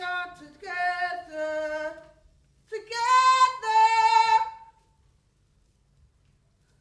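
A woman singing unaccompanied: two short phrases of held, sustained notes, the first stepping downward in pitch and the second pitched higher.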